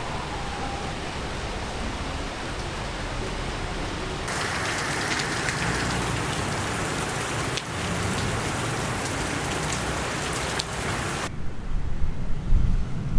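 Steady hiss of falling rain, changing abruptly twice as if across cuts. Near the end the hiss stops suddenly, leaving a low, gusty rumble.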